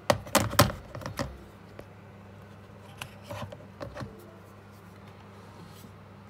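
Handling clatter of a smartphone and its charging cable at a laptop: a quick cluster of sharp clicks and knocks in the first second and a half, and a few softer ones about three to four seconds in, over a steady low hum.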